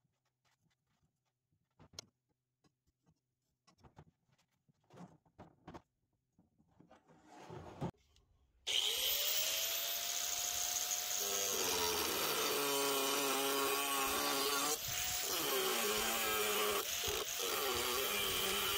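Faint scratching and small taps of a marker on the steel blade, then about nine seconds in an angle grinder with a cutoff wheel starts abruptly with a rising whine and cuts slots into the steel katana blank, its pitch wavering as the wheel bites.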